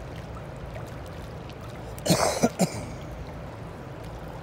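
A man clears his throat with a quick run of three short coughs about two seconds in, over a steady low background rumble.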